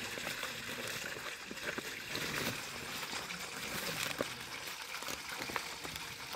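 Water trickling steadily over stones, with scattered light crackles of a fresh banana leaf being folded and handled.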